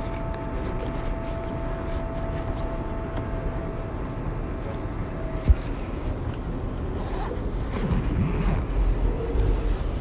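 R188 subway train coming into a station: a steady rumble with two held whining tones that fade out about five and a half seconds in, a single sharp click, then tones wavering up and down in pitch and a louder low rumble from about eight seconds as the train pulls alongside.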